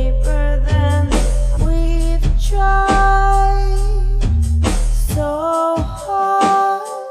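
Music: a song made on BandLab, with drums, a deep sustained bass and a melodic lead line. The bass drops out near the end.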